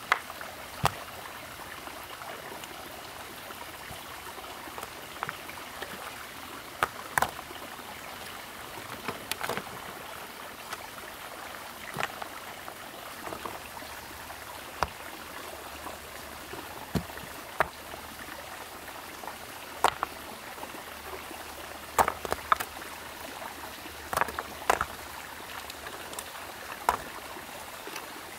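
Lumps of iron ore knocking against each other as they are set down one by one on a pile: irregular sharp knocks, sometimes two or three close together, over a steady background hiss.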